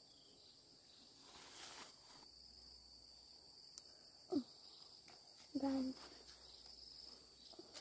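Insects chirring with a steady high buzz outdoors, with a soft rustle about a second and a half in. Two short human vocal sounds, one falling in pitch around four seconds in and another a moment later, are the loudest things heard.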